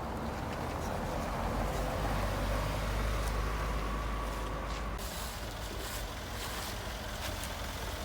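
A car engine running at low revs as a vehicle moves past on the street, with a low rumble that swells and then eases about halfway through.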